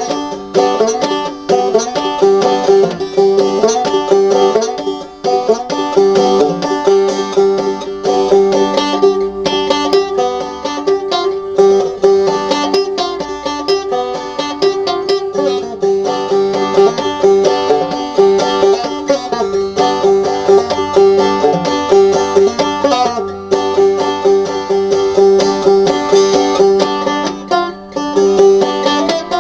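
Five-string banjo played clawhammer (frailing) style: a quick, continuous run of plucked and brushed notes over a steady ringing drone.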